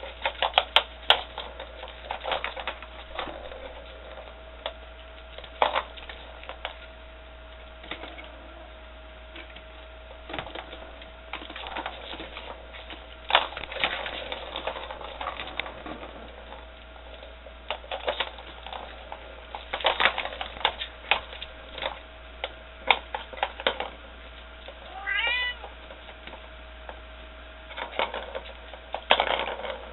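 Kittens batting at a round plastic toy: irregular plastic clicks, taps and clatter of paws on the toy. A kitten meows once, briefly, about 25 seconds in.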